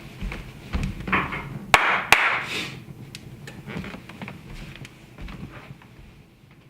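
Wood fire crackling and popping, with two loud sharp pops about two seconds in; the crackle fades out near the end.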